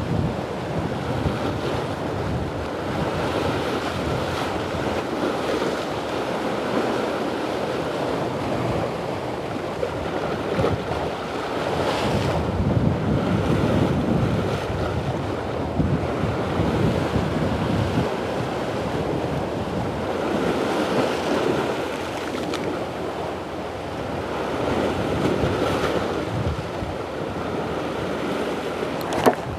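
Sea waves washing and breaking against shore rocks, swelling and easing every few seconds, with wind buffeting the microphone. A single sharp click near the end.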